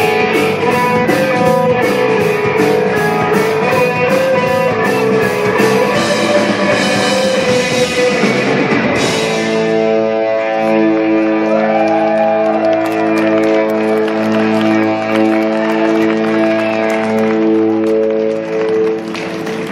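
A live rock band with amplified electric guitar, bass and drum kit playing to a steady cymbal beat. About halfway through the drums stop and a held chord rings on, dropping away near the end as the song closes.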